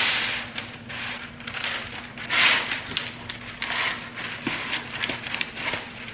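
Parchment paper being pulled off its roll from the box and unrolled, rustling and crinkling in uneven bursts, loudest right at the start and again about two and a half seconds in.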